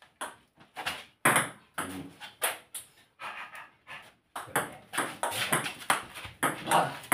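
Table tennis rally: the plastic ball clicking off the bats and bouncing on the table in a quick run of sharp taps, which come faster in the second half.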